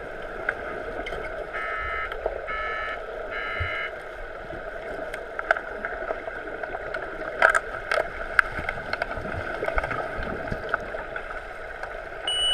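Muffled underwater pool ambience heard through a submerged camera during an underwater hockey game: a steady wash of water noise with scattered sharp clicks and knocks. About two seconds in come three short pitched beeps.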